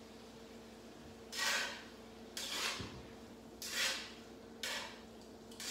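Thin spaghetti being tossed and stirred with a utensil in a skillet of sauce: short scraping swishes about once a second.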